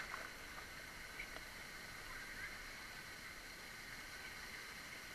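Faint, muffled pool water: a steady hiss of lapping and splashing with a few small ticks, as a swimmer moves through the water close by.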